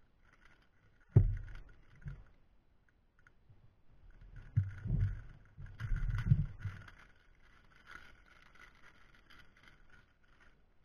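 Clear plastic bag crinkling and rustling as it is handled and pulled open around a jar, with a sharp knock about a second in and a run of low bumps and crackles in the middle.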